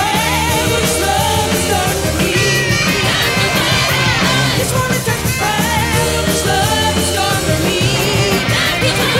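Rock song played by a band, a lead voice singing over electric guitar and drums.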